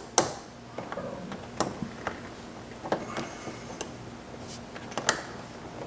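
Irregular sharp clicks and light taps of a Phillips screwdriver driving a screw into a plastic interior door handle, a handful of separate strokes.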